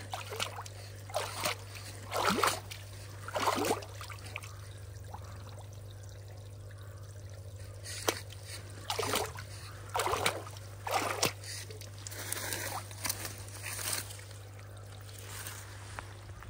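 Pond water splashing and sloshing in short, uneven bursts as a pole-mounted tool is pushed and dragged through it. A steady low hum runs underneath.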